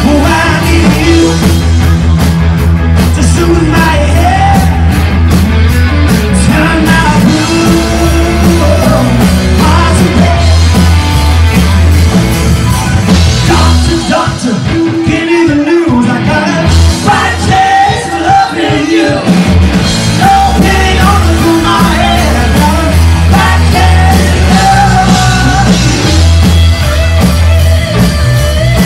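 Live rock band playing loud: electric guitars, bass, drums and lead vocals. The bass falls away for about five seconds halfway through, then comes back in.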